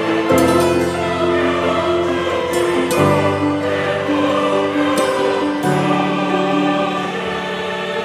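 Background music: held chords that change about every three seconds.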